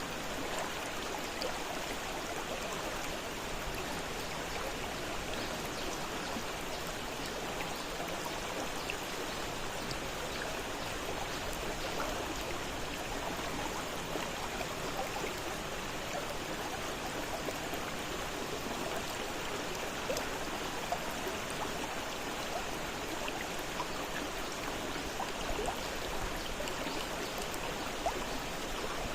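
Fast-flowing river running steadily over rocks, a constant rushing and babbling of water with small splashes throughout.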